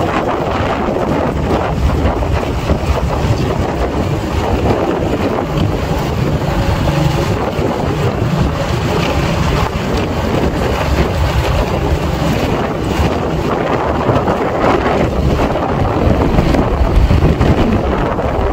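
Wind rushing over the microphone of a moving motorcycle, with the motorcycle's engine running steadily underneath.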